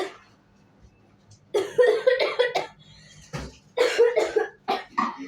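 A person coughing in repeated fits after eating spicy noodles: a run of coughs about one and a half seconds in, then more short bursts of coughing.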